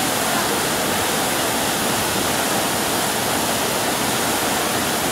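Muddy floodwater surging through a reservoir spillway channel: a steady, loud rush of turbulent water.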